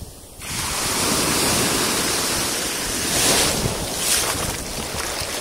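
Small waves washing in over sand in shallow water, with wind on the microphone. The wash picks up sharply about half a second in and surges twice a little past the middle.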